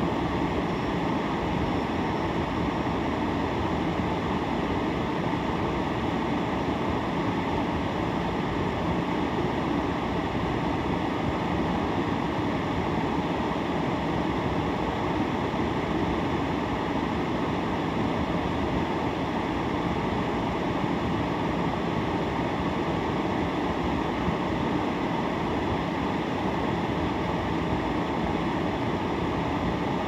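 Steady, even rushing noise inside a car's cabin while the car sits stopped in traffic.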